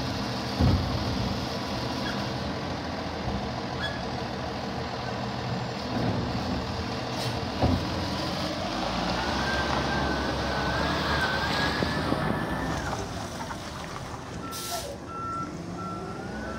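International garbage truck with a Labrie Automizer side-loader arm running steadily, with clunks as the arm handles a cart near the start and about 7.5 s in, and a wavering whine from about 9 to 13 s. About 14.5 s in there is a short air-brake hiss, then a back-up alarm beeps evenly.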